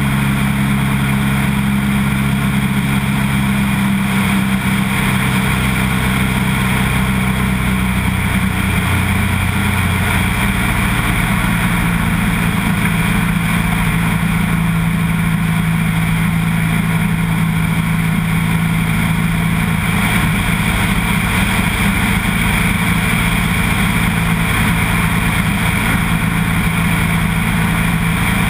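Single-engine floatplane's piston engine and propeller droning steadily in cruise flight, with air rushing past a mic mounted outside the aircraft. The engine note shifts slightly in pitch about ten seconds in.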